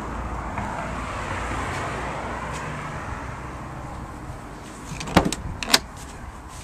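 A steady outdoor rush that slowly fades, then a few sharp knocks about five seconds in.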